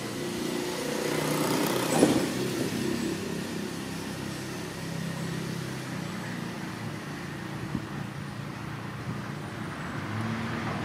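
Motor vehicle engine running steadily, swelling about two seconds in, where a sharp knock sounds, then settling back to a steady hum.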